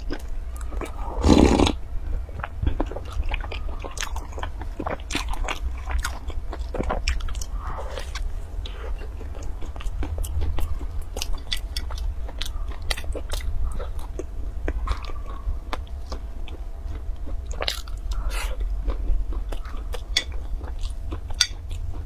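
Close-miked eating of a crisp, flaky baked pastry: repeated crackling bites and chewing crunches. A loud sip of milk comes about a second and a half in.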